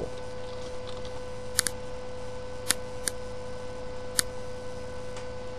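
About four sharp, isolated clicks of computer keys and mouse buttons, spaced irregularly, over a steady electrical hum and faint microphone hiss.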